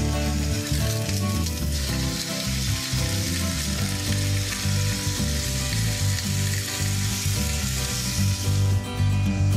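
Thin slices of cured ham sizzling in hot oil in a frying pan as they are laid in and moved about with a fork. The sizzling dies down near the end.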